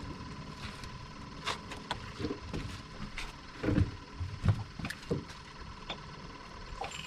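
Irregular clicks and knocks of a fishing rod and reel being handled on a boat while re-rigging and casting, with two dull thumps a little past the middle.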